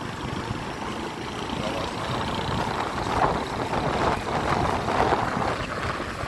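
Street traffic: cars and trucks running past in a continuous, uneven rumble.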